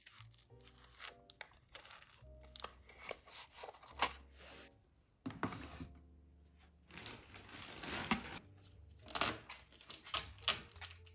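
Plastic packaging rustling and crinkling, with irregular clicks and knocks as the hard plastic parts of a new Samsung cordless stick vacuum are handled and set down on a wooden floor. Soft background music plays faintly underneath.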